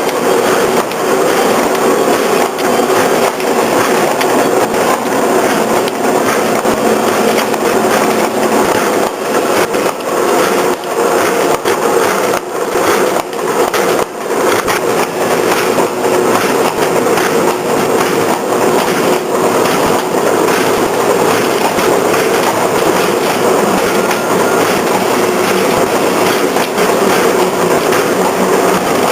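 Shaped-seal bag-making machine running: a steady, fast mechanical clatter.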